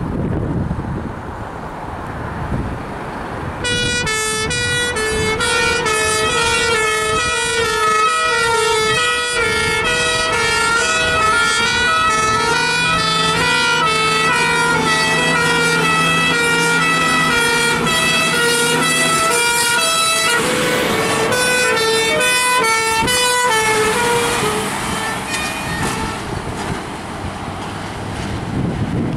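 Fire engine sirens on two Scania fire appliances turning out together, overlapping two-tone sirens stepping between a high and a low pitch. They start about four seconds in over the rumble of the truck engines, a long low horn blast sounds in the middle, and the sirens fade away into road and wind noise near the end.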